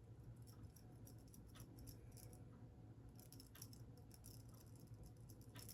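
Near silence: low room hum with faint, scattered light clicks and rattles.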